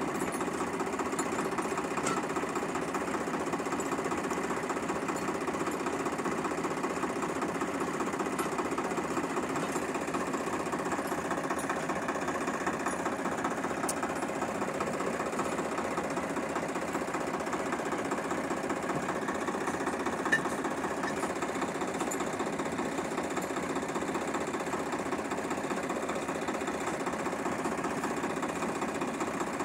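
Tractor diesel engine running steadily with a fast, even clatter. A single short click about twenty seconds in.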